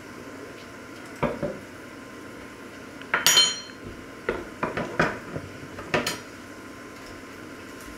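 Metal cutlery being set down and moved about on a wooden counter: a series of clinks and clatters, the loudest about three seconds in with a brief metallic ring, over a steady faint hiss.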